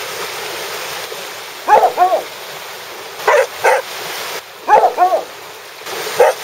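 Border collie barking in short pairs, about seven barks in all, over the steady wash of small waves.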